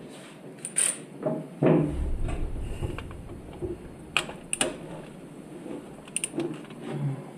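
Metal hand tools clinking and clicking against an engine's intake manifold in a run of scattered sharp clicks, with a heavier thump about a second and a half in.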